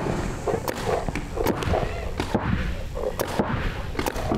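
Paintball markers firing, sharp shots at irregular intervals, some in quick pairs.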